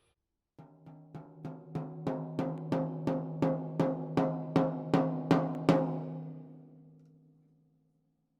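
A tom on a Sakae Trilogy kit (three-ply maple/poplar/maple shell, coated Ambassador batter head, no muffling) struck with a stick about three times a second, building steadily louder. The last hit is left to ring, and its clear low pitch fades out over about two seconds.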